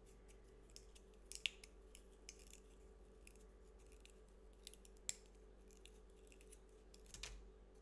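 Faint, scattered small clicks and rustles of sewing thread being unwound by hand from a small bobbin, over a low steady room hum. A few sharper ticks come about a second and a half in, again about five seconds in, and near the end.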